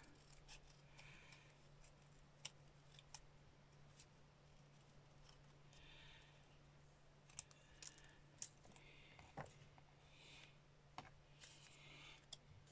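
Small craft scissors snipping through thin card around a stamped image: faint, irregular snips and clicks. A steady low hum runs underneath.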